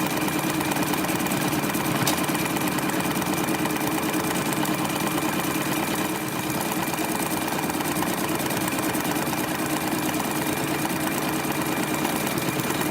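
Sewing machine running steadily at speed, stitching free-motion stippling through the quilt top, batting and backing.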